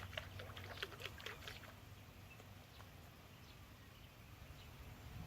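Ducks quacking in a quick chattering run that dies away about two seconds in, over a low steady rumble.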